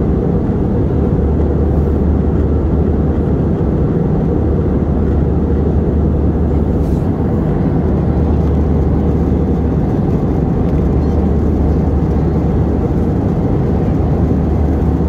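Steady cabin noise of an Airbus A319-111 in flight, heard from a window seat: a low rumble of engine and airflow with a deep, even hum underneath.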